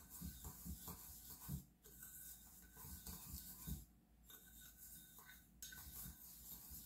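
Faint gritty scraping of a spoon stirring Epsom salts in a bowl to work in the essential oil, with a few soft knocks against the bowl.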